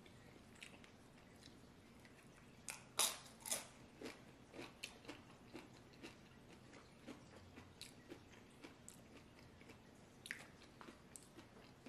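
A person chewing a tortilla chip loaded with burrito-bowl food: several loud, sharp crunches about three seconds in, then quieter crunching that goes on at irregular intervals.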